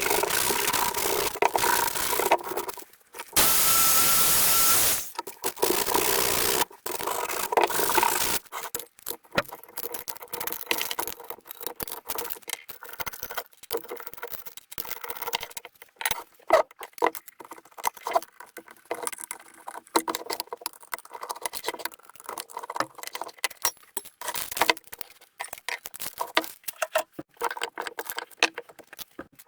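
Workshop work on metal parts: for several seconds a continuous grinding, hissing tool noise with a steady hum, stopping and starting. After that, a long run of irregular small clicks, taps and scrapes of metal parts and tools being handled.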